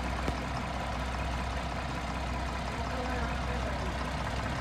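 Asphalt paver's diesel engine running steadily at low revs, a constant low drone.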